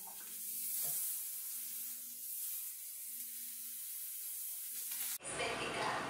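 A steady high-pitched hiss. About five seconds in it switches abruptly to a slightly louder, fuller noise that reaches down into the low end.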